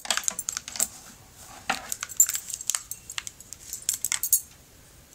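Irregular light clicks and taps with small metallic clinks: handling noise from the phone that is recording.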